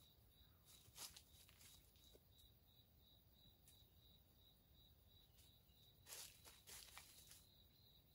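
Near silence with a faint, steady, pulsing insect chirr. A few soft rustles come about a second in and again around six to seven seconds in.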